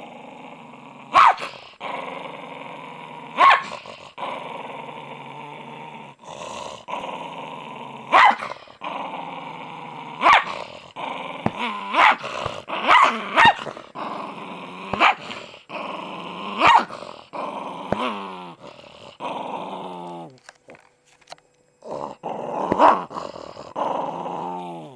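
Small dog growling angrily and almost without a break, with about ten sharp barks or snaps cutting through. There is a short lull a little before the end, then more growling and a bark.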